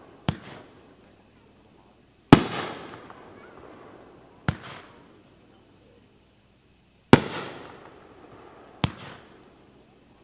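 Magnus Fireworks 'Lucky One' 9-shot cake firing single shells: each shot is a launch thump followed about two seconds later by a louder burst with a long fading echo. Three launches and two bursts are heard.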